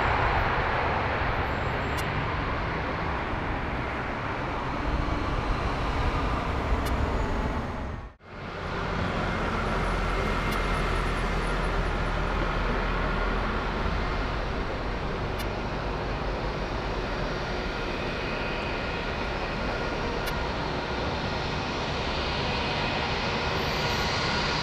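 Airliner jet engines running, a steady rush of noise with a faint turbine whine. It breaks off for a moment about eight seconds in, then carries on.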